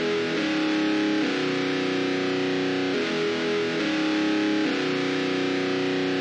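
Distorted electric guitar playing slow, held chords on its own, with no drums, as the intro of a metal song; the chord changes every second or two.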